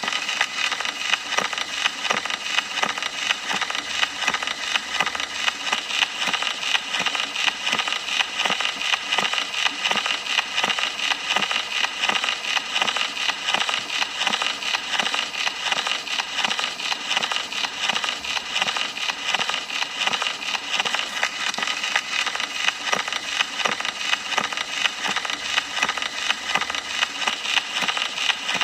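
Gramophone record surface noise: continuous hiss thick with fine crackles and small pops, steady throughout.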